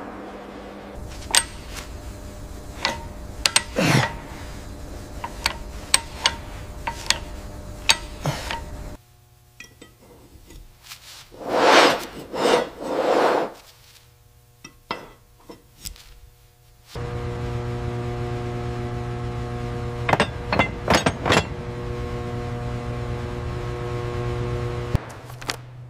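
Workshop sounds of metal parts and tools being handled: a run of sharp metallic clinks and taps over a low rumble, then a quieter stretch with a few scraping rubs, then a steady machine hum with several more clicks over it. The hum starts abruptly about two-thirds of the way in and stops shortly before the end.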